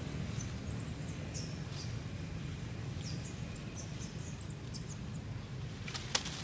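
A string of short, high chirping calls that bend in pitch, over a steady low rumble, with one sharp snap about six seconds in.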